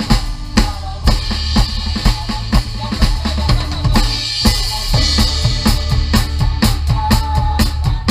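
Drum kit playing a quick, busy beat, with bass drum and snare hits driving it, over the rest of a band in an upbeat worship song.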